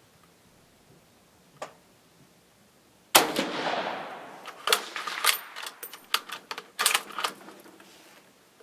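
A single shot from a 6.5mm Carcano M38 bolt-action short rifle firing a cast-lead-bullet load, its report dying away over about a second. A quick run of sharp metallic clacks follows as the bolt is worked to eject the spent case and chamber the next round.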